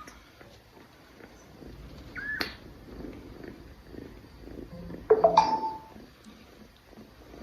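A small kitten meowing twice: a short meow about two seconds in, then a louder, longer meow about five seconds in.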